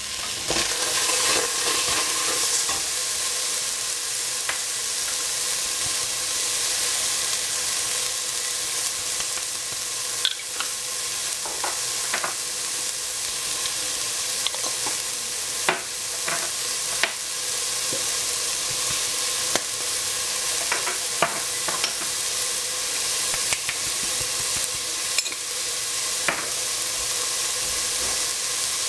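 Food sizzling steadily as it fries in a hot pan, stirred with a utensil that gives scattered sharp clicks against the pan.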